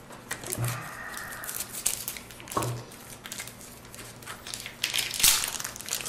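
A Topps baseball card pack's wrapper being torn open and crinkled by hand, with the cards rustling. The crackling comes in irregular bursts and is loudest about five seconds in.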